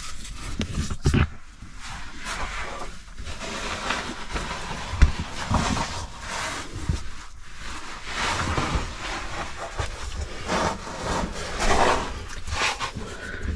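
Hands, clothing and gear scraping and rubbing against limestone boulders while climbing down through a tight boulder choke, with scattered knocks, the sharpest about five seconds in.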